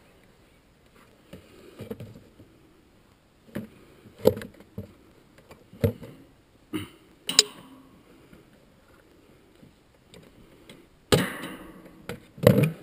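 Tools, a spray can and rags being handled in a plastic bucket: a series of separate knocks and clinks, with a louder rustle and clatter near the end.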